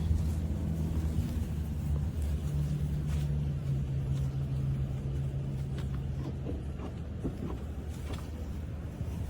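A vehicle engine running with a steady low rumble and hum.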